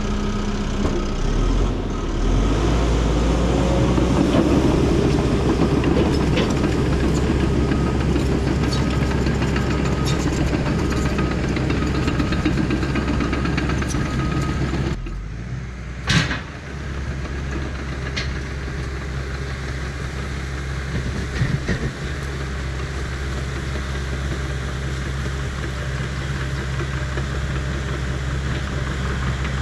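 Bulldozer's diesel engine running steadily under load while it pushes a root rake, with occasional clanks. The level drops abruptly about halfway through, just before a single sharp knock.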